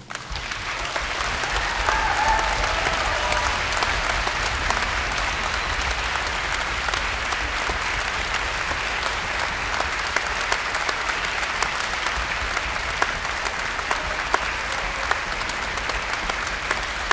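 Concert audience applauding, breaking out all at once as the final chord of the orchestra dies away and holding steady, with a brief cheer about two seconds in.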